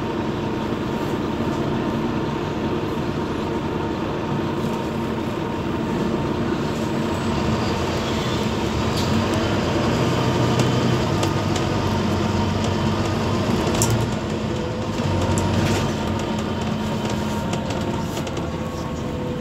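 Interior noise of a Wright Gemini 2 double-decker bus on the move: steady engine drone and road rumble. It grows louder from about six seconds in and drops off sharply about fourteen seconds in, with light clicks and rattles from the cabin fittings.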